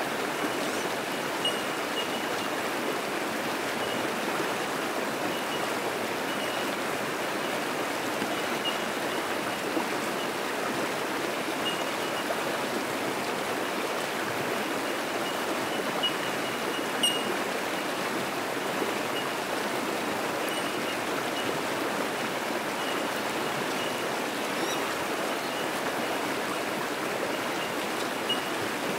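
Fast-flowing creek rushing steadily over rocks in a continuous white-water wash. Above it, bell miners (bellbirds) give short high 'tink' notes every second or so, one a little louder about halfway through.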